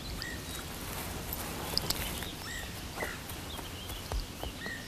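Quiet outdoor background with about three faint, short bird chirps spread across a few seconds and scattered light ticks or taps.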